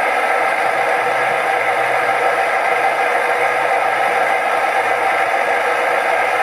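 DCC sound decoder of a Piko HO-scale DR V200 model diesel locomotive playing its recorded diesel engine sound through the model's small loudspeaker: a steady running engine with a low, uneven throb under a hissy rattle. The prototype is the Soviet-built M62 two-stroke diesel.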